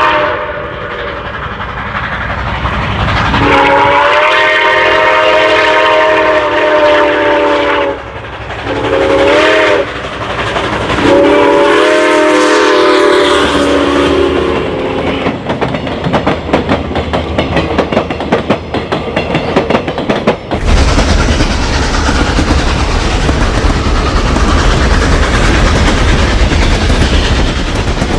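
Train horn sounding three blasts, long, short, then long, over the clatter of a passing train on the rails. About two thirds of the way through, a heavy low rumble of the train takes over and stays.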